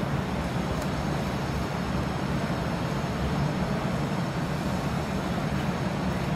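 Steady low rumble of background noise with a fainter hiss above it, unchanging throughout.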